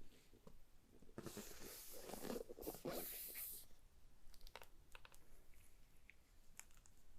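Keyboard packaging being handled: a rustling, scraping stretch of about two seconds starting a second in, then a few scattered light clicks and taps.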